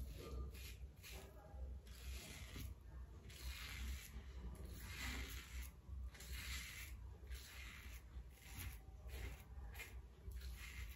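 Merkur 34C double-edge safety razor with a Wilkinson Sword blade scraping through lathered stubble in short strokes, about one a second, on a second pass across the grain.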